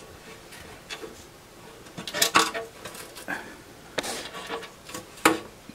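Small screwdriver prying and scraping retaining clips off the metal rail of an instrument case, with scattered metallic clicks and scrapes; the sharpest click comes a little over five seconds in.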